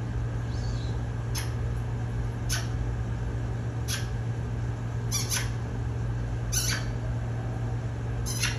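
African grey parrot making short, sharp clicks, about seven at irregular intervals, over a steady low hum.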